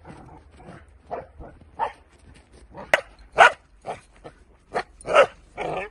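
Dutch Shepherd puppy barking repeatedly in short single barks, the loudest in the middle and near the end, with a sharp click about three seconds in.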